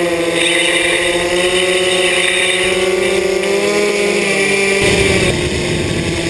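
Small electric motors driving an eBlimp's ducted-fan propellers, heard from a camera on board, humming steadily with a slight drift in pitch. From about five seconds in, a low rushing noise joins the hum.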